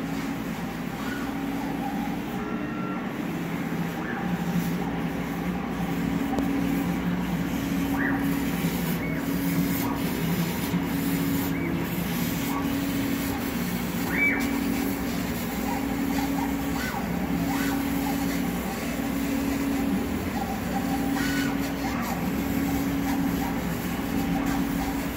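Yueming CMA1309 CO2 laser cutter cutting sheet material: the motors driving the cutting head whine at two alternating low pitches, switching about once a second as the head traces the shapes, over a steady machine hum.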